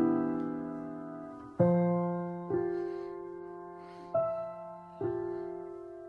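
Slow, gentle piano music: five soft chords struck in turn, each ringing and fading before the next.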